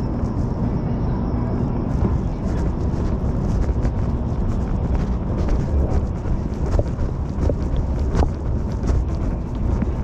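Las Vegas Monorail train running, heard from aboard: a steady low rumble with wind-like noise, and a few sharp clicks in the second half.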